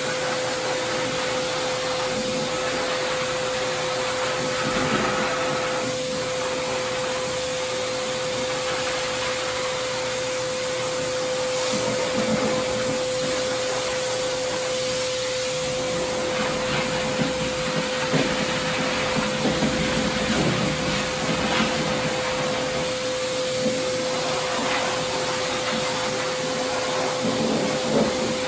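Forced-air dog dryer at a self-service dog-wash tub blowing steadily: a rush of air with a steady motor whine, played over a wet dog's coat.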